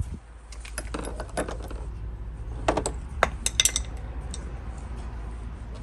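Handling noise as the camera is set in place: a scatter of small clicks and knocks, with a tighter cluster of sharper clicks about three seconds in, over a steady low rumble.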